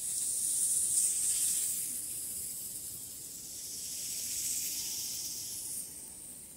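A long, high, airy hiss sound effect, like a snake hissing. It swells at the start and again about two-thirds of the way in, then fades away near the end.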